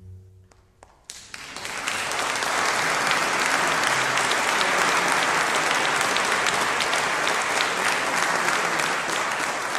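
Audience applause that starts about a second in, as the last low guitar note dies away, and grows to steady clapping that begins to thin near the end.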